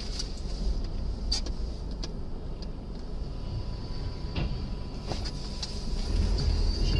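Steady low rumble of a car driving on a snowy road, heard from inside the cabin, with a few light clicks. The rumble grows louder about six seconds in.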